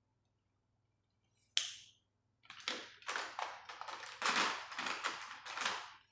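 A sharp click, then felt-tip markers and coloured pencils clattering against each other and the plastic box as a hand rummages through them.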